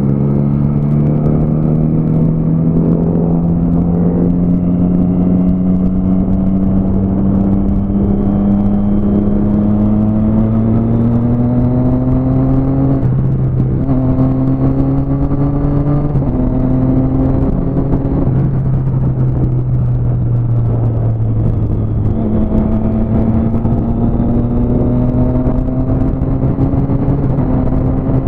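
Motorcycle engine running at highway speed, heard from on the bike itself, with wind and road rush around it. Its note climbs slowly through the first half, then dips and steps in pitch several times past the middle as the throttle is eased and opened again.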